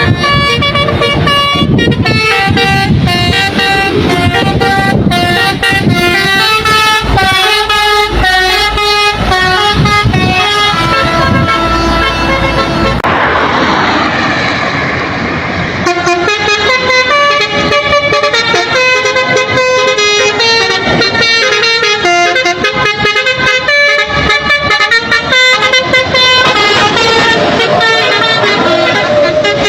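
Basuri telolet musical horn on a truck playing a tune of held notes stepping up and down, over road and engine rumble. About 13 seconds in the tune gives way to a rush of noise for a few seconds, then the horn tune starts again.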